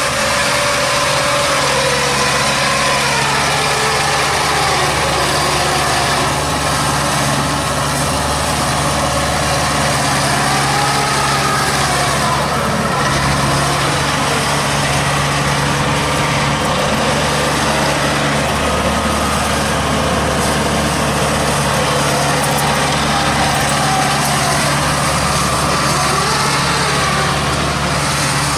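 Engine of a homemade straw-gathering machine built from an old rice harvester, running steadily, with a whine above it that rises and falls in pitch every few seconds.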